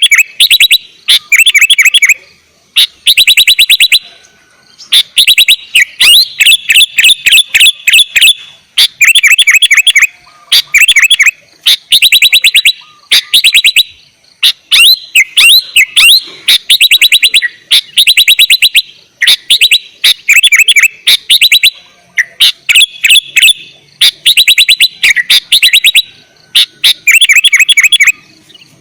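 Sooty-headed bulbul (kutilang) singing loudly and almost without pause: phrases of rapid, chattering, sliding notes, each about a second long, follow one another with short gaps.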